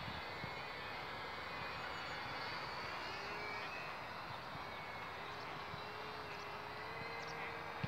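The two brushed electric motors and propellers of a HobbyZone DeltaRay Firebird RC delta wing in flight, heard as a faint steady tone over an even background hiss.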